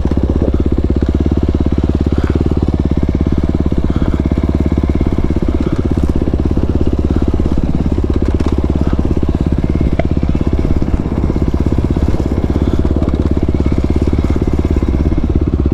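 Dirt bike's single-cylinder four-stroke engine running steadily as the bike rides along a dirt trail.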